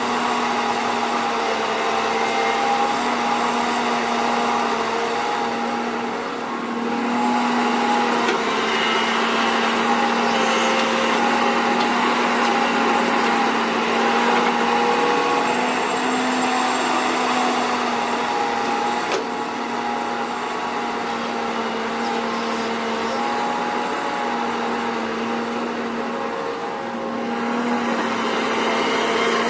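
Heavy earthmoving machinery with a diesel engine running steadily under working load, its pitch wavering slightly. The engine note eases off briefly about six seconds in and again near the end, then picks back up.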